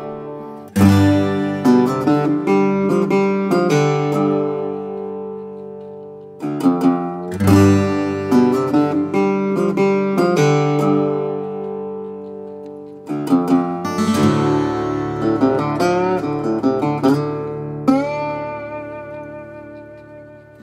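Background music: plucked acoustic guitar playing phrases that ring out and fade, with a few notes bent upward in pitch near the end.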